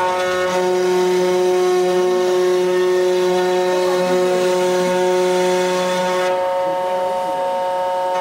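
Desktop CNC router cutting wood: a steady spindle whine under a rasping cutting noise. The cutting noise stops about six seconds in, leaving the spindle whine running on its own.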